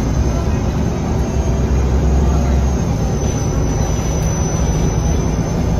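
Cabin noise inside a moving MAN NG363F articulated diesel bus: a steady low engine drone under road noise, with a thin high whine above it. The low drone drops away about halfway through.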